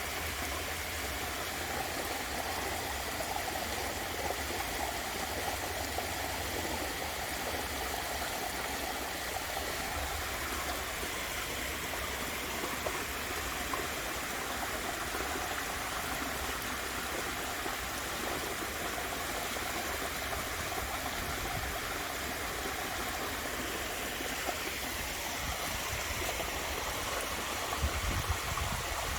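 Waterfall: steady rushing and splashing of falling water.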